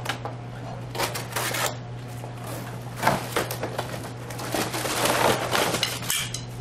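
A utility knife slicing through a cardboard box, with the cardboard scraping and rustling in irregular strokes as it is cut and pulled open. Near the end the wire-mesh trap scrapes and rattles as it is lifted out of the box.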